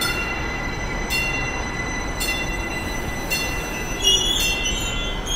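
TEXRail commuter train (a Stadler FLIRT diesel multiple unit) pulling into the station. A steady high tone runs under a ring that repeats about once a second, and a high wheel or brake squeal comes in about four seconds in.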